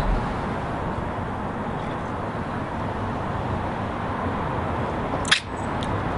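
Steady low background noise with no clear single source, broken by one short sharp click a little over five seconds in.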